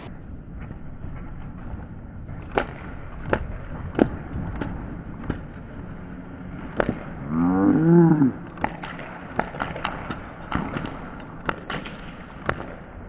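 Airsoft guns firing single sharp snaps at irregular intervals, with one long wavering moan-like vocal call about seven to eight seconds in.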